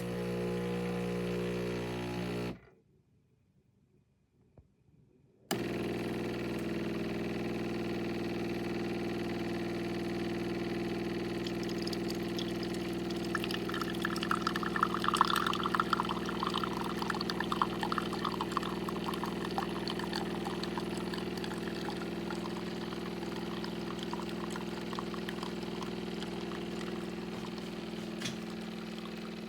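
De'Longhi TrueBrew drip coffee maker brewing: its water pump hums steadily and hot coffee streams and trickles into the carafe. The pump stops for about three seconds near the start, then resumes. The splashing of the pour is loudest in the middle, then eases.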